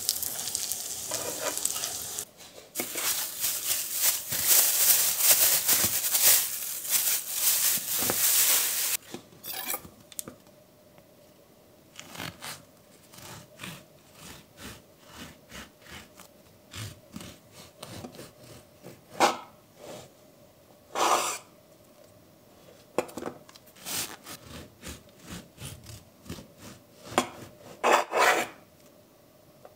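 Steady rasping and rubbing of hard food being cut or grated for about the first nine seconds, then scattered light clicks, taps and knocks of kitchen handling.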